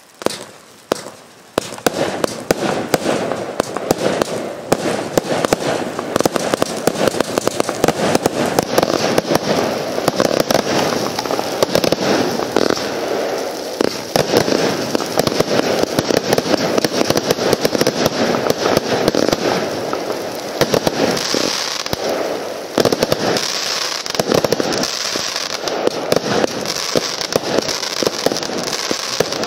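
A 600-shot compound firework cake firing. One shot goes off just after the start, then from about a second and a half in comes a rapid, unbroken stream of launches and bursts. A higher hiss joins in about eight seconds in.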